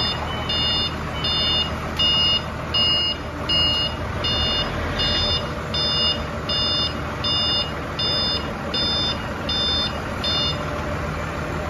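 Reversing alarm of a SOCMA 10-ton forklift beeping about three times every two seconds as the truck backs up, over its engine running steadily; the beeping stops near the end.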